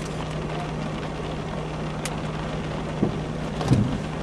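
Vehicle cabin noise picked up by a dash cam: a steady rumble with a constant low hum, a few light clicks and knocks, and a louder bump near the end.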